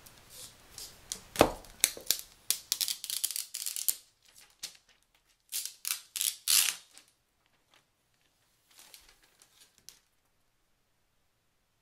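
Unboxing packaging being handled. A sharp click comes about a second and a half in, followed by bursts of crinkling and tearing that die away after about seven seconds, with a few faint rustles near the end.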